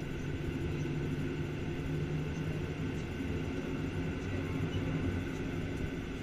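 Cabin noise inside a Boeing 737-800 taxiing at low thrust: a steady low rumble and hum from its CFM56-7B turbofan engines.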